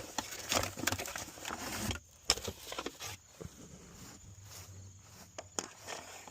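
Shotgun shells rattling and clicking as they are handled and loaded into a Mossberg 500 12-gauge: a dense run of clicks and clatter for about two seconds, then scattered single clicks.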